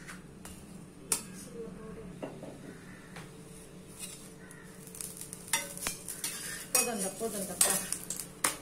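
Spatula clinking and scraping against a pan at irregular moments, over a faint sizzle of food frying.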